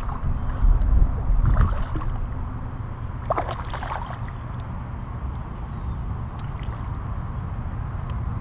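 Wind rumbling on the microphone over water around a kayak, with a few short knocks or splashes in the first half.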